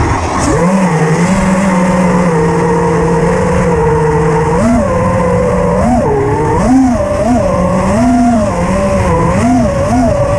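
Armattan Chameleon FPV quadcopter's Grinder 2306 brushless motors whining, spinning up about half a second in and holding a steady pitch, then from about halfway through rising and falling again and again with throttle changes.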